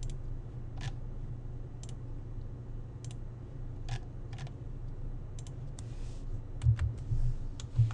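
Scattered clicks of a computer mouse and keyboard as options are picked from drop-down menus and a number is entered, over a steady low hum. A few dull knocks near the end.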